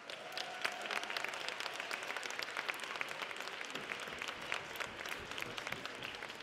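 Audience applauding: many hands clapping together, starting suddenly and easing off slowly toward the end.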